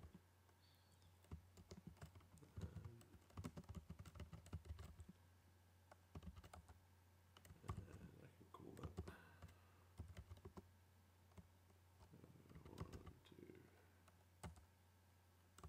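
Typing on a computer keyboard: quick runs of keystrokes in three spells with short pauses between, over a low steady hum.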